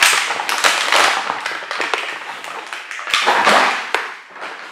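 Crinkling and rustling of plastic toy packaging being handled and opened, with many small crackles and clicks.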